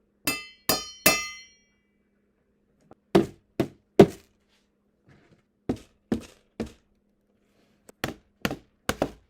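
A metal spoon striking containers in four sets of three: the first three hits on a small metal pot ring with a clear metallic tone, and the next nine are short, dull knocks on the non-metal containers.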